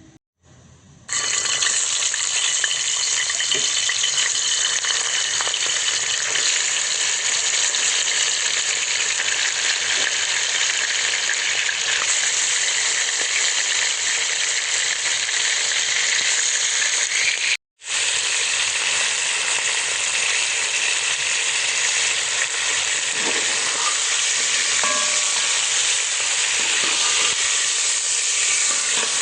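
Food frying in a hot pan: a loud, steady sizzling hiss that starts about a second in and breaks off for an instant about two-thirds of the way through before carrying on.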